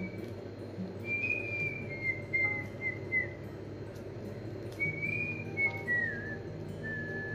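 A person whistling a tune: two phrases of held, clear notes, some sliding downward, with a short pause between them.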